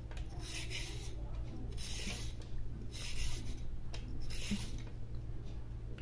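Handheld vegetable peeler scraping the skin off a fresh carrot in short rasping strokes, roughly one a second, over a faint steady low hum.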